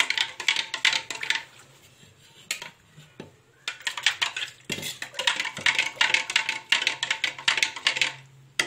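A spoon stirring a spiced water brine in a plastic blender jug, in fast runs of clinks and scrapes against the jug's sides. The stirring stops briefly about a second and a half in, then starts again a couple of seconds later and goes on until near the end.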